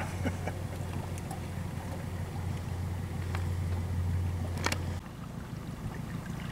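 Wind noise on the microphone over open water: a steady low rumble with a light hiss and a couple of faint clicks. The rumble cuts off abruptly about five seconds in.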